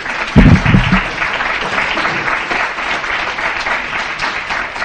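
Audience applauding, a dense clatter of many hands clapping, with a loud low-pitched burst about half a second in.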